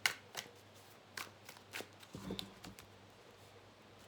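Tarot cards being handled and shuffled: a few crisp, irregular snaps and slaps of cards, loudest right at the start.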